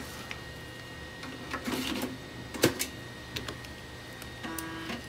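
A few scattered clicks and taps, then near the end a short buzz from a PC floppy drive as its head steps and it starts reading the next installation disk.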